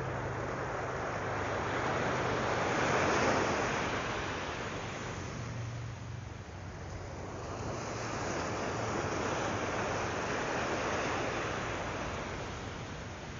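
Surf breaking and washing up a sandy beach, the rush of the waves swelling about three seconds in and again later.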